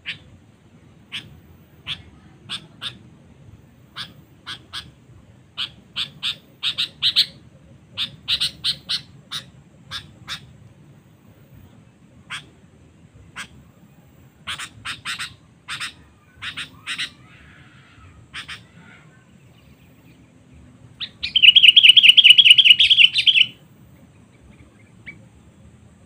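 Sooty-headed bulbul calls: short sharp notes, singly and in quick clusters, then a loud rapid chattering run lasting about two seconds near the end.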